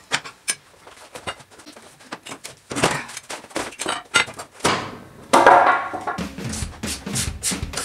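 Workshop handling noises: irregular knocks and clicks of work on the mower's underside and of a wooden plank being handled on a concrete floor, with a louder, longer noisy rush a little over halfway through.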